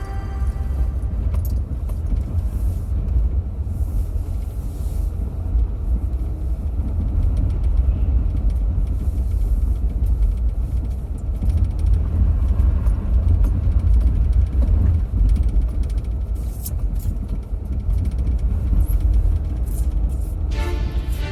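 A car driving, with a steady low rumble of road and engine noise and a few light rattles. Music comes back in near the end.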